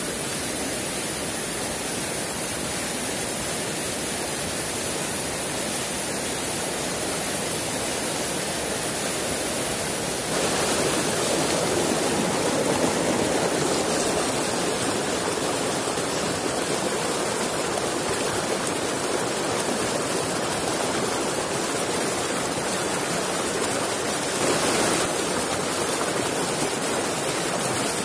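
Shallow rocky river rushing over stones in rapids, a steady noise that gets louder about ten seconds in. A thin, high, steady whine sits over it for the first ten seconds.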